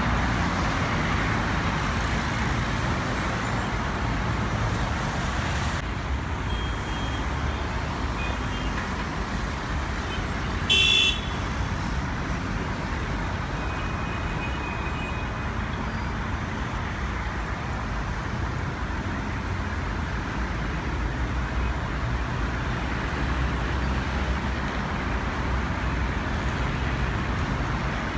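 Steady road traffic, with a short car horn toot about eleven seconds in.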